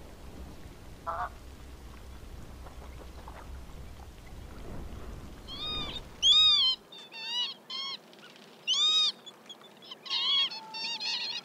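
A faint low rumble, then from about five and a half seconds a quick run of short bird calls, each rising and falling in pitch. The loudest calls come near six and a half and nine seconds.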